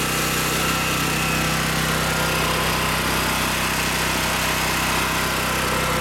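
Black Max 10 hp portable generator's engine running steadily on wood gas from a gasifier while carrying a full load, mixed with the steady whine of the upright vacuum cleaners it is powering.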